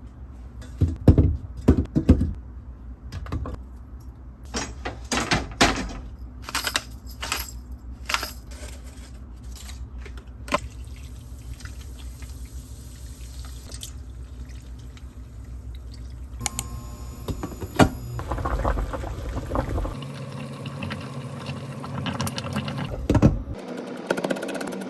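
Kitchen cooking sounds: a run of knocks and clatters of utensils and cookware for the first half, then water running or pouring for several seconds.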